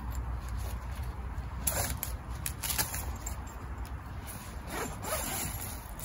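Zip on a Night Cat hammock tent's rain fly being pulled open in short strokes, a few about two seconds in and more about five seconds in.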